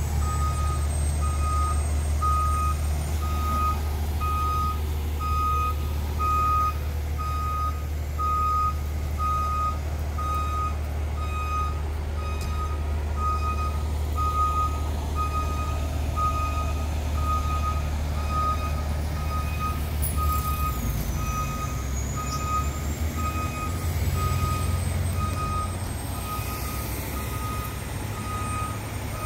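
Fire department aerial ladder truck reversing: its backup alarm beeps steadily at about one beep a second over the low running of its diesel engine. The engine note shifts about twenty seconds in as the truck settles into the bay.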